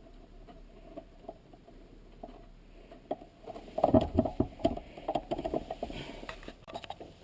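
Shifter mounting bolts being tightened down on a short-throw shifter base with a hand tool: quiet at first, then a run of rapid, irregular clicks and knocks from about three and a half seconds in.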